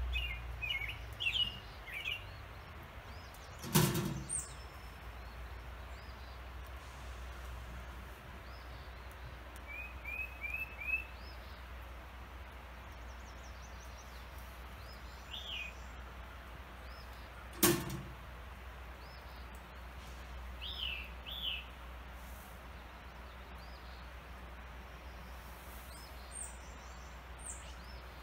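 Wild songbirds chirping now and then in short calls, over a steady low outdoor rumble. Two sharp knocks, the loudest sounds, come about 4 seconds in and again about 14 seconds later.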